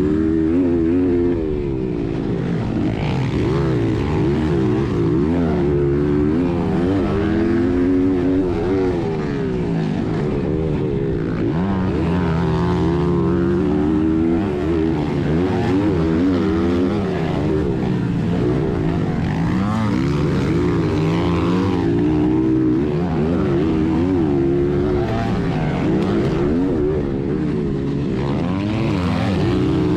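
1996 Honda XR100R's air-cooled four-stroke single-cylinder engine running hard in a dirt-bike race, heard from on the bike, its revs rising and falling over and over as the rider opens and closes the throttle.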